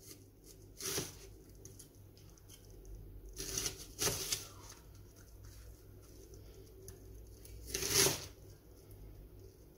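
A chef's knife slicing through a red onion on a plastic cutting board: about four separate slow cuts, the longest near the end, each a short cutting noise.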